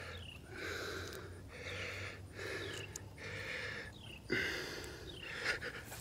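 A man's heavy breathing close to the microphone, about one breath a second, as he strains and reaches down into the water; a louder, sharper breath about four seconds in.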